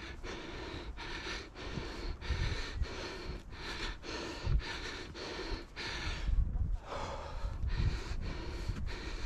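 A hiker's heavy panting on a steep stair climb, breathing hard through a face mask in quick, even breaths about two a second, with occasional low thumps.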